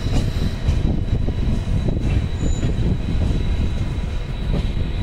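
Passenger train running on the rails, heard from aboard the coach. There is a steady low rumble of wheels and track, a thin, steady high whine, and a few light clicks over the rail joints.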